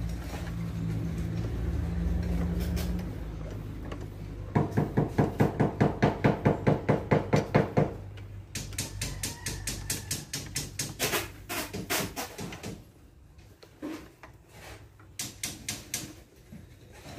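Socket wrench ratcheting as bolts are tightened on a truck starter motor: a run of rapid, even clicking strokes, then shorter bunches of sharp clicks. A steady low hum sits under the first few seconds.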